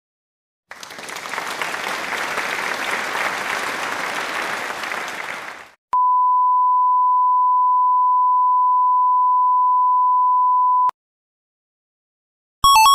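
Sound-effect clips played one after another. First comes about five seconds of applause that swells and then dies away. Then a single steady high beep is held for about five seconds and cuts off suddenly, and a short electronic chime starts near the end.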